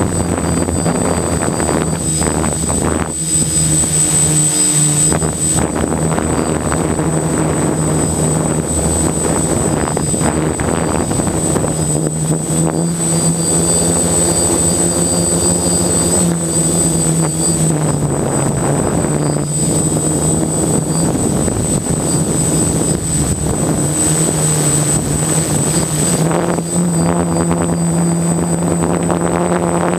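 DJI F450 quadcopter's four brushless electric motors and propellers buzzing steadily, as heard from the GoPro on its frame, with a thin constant high whine above the hum. The hum's pitch rises and falls slightly a few times as the throttle changes.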